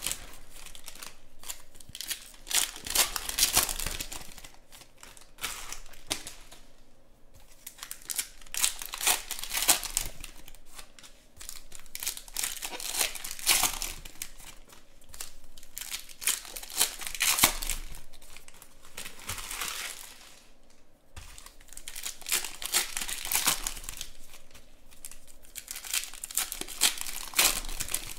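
Foil trading-card pack wrappers being torn open and crinkled by hand, in repeated crackly bursts with a couple of brief lulls.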